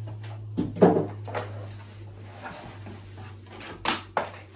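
Handling noise of a pressure cooker being lifted out of its cardboard box: knocks and rustles against the cardboard, loudest about a second in, and a sharp crinkle of its plastic wrapping bag near the end.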